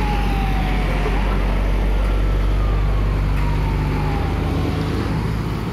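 A vehicle siren sounding in slow falling sweeps, two of them, each gliding down over about three seconds, over a steady low drone of engines.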